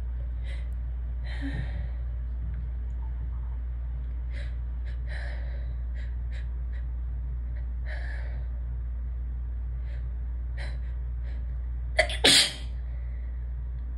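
A sneeze buildup: a series of short, soft catching inhales over about eleven seconds, then a sharp sneeze about twelve seconds in, the loudest sound. A steady low hum runs underneath.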